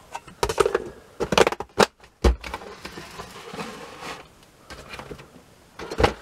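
Plastic sweet tubs and their lids being handled and set down on a workbench: a quick run of clacks and knocks, a heavier thump a little over two seconds in, softer handling, then another knock near the end.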